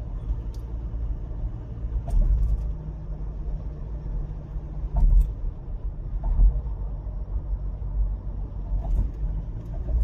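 Car interior road noise while driving slowly down a ramp: a steady low rumble from engine and tyres, with a few light knocks and clicks.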